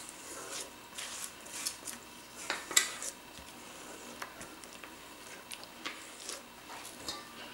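Spatula scraping and knocking lightly against a stainless steel bowl while folding whipped egg whites into a soft cream. Faint, with scattered small clicks, the loudest a little under three seconds in.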